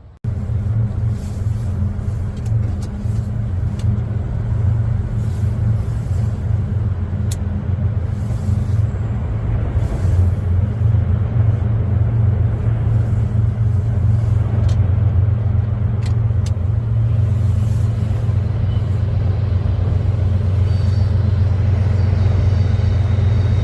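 A steady low engine rumble, slowly growing a little louder, with a few sharp clicks.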